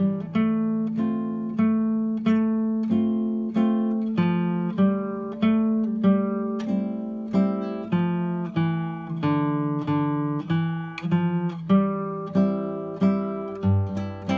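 Classical guitar played solo: a plucked melody of single notes, roughly two a second, each ringing and fading, over low bass notes.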